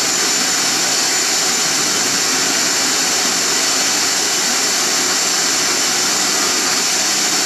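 Crown CSC-950L radio-cassette recorder's radio giving a loud, steady hiss of static through its speaker, tuned off-station between broadcasts.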